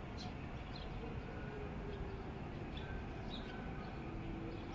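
Morning outdoor ambience: small birds chirping faintly and irregularly over a steady low background rumble.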